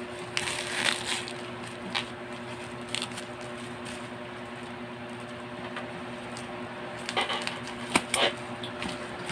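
Plastic bubble wrap crinkling and rustling in irregular short bursts as it is handled and cut open with scissors, busiest near the end with a few sharp snips.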